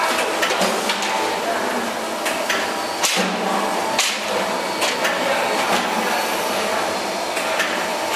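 Hydraulic die-cutting press running as it stamps discs out of a sandpaper sheet: a steady machine hum with sharp, irregular knocks as the cutting head strikes.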